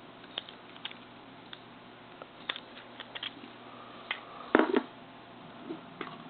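Small clicks and taps of plastic phone parts being handled, with a louder short clatter about four and a half seconds in.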